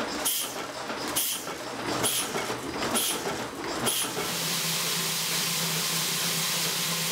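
Screw-factory machinery at work: a machine stroking with a sharp clack about once a second, then from about four seconds in a steady hiss over a low hum.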